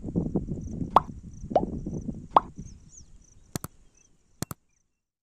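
Three quick pop sound effects, then two short mouse-click sounds, from a like-and-subscribe button animation, over a low outdoor rustling that fades out; the audio then drops to silence.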